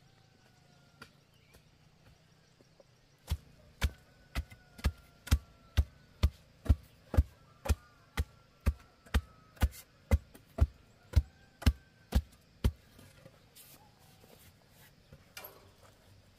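A steady series of about twenty strikes of a hand tool on wood, roughly two a second, starting a few seconds in and stopping about three-quarters of the way through.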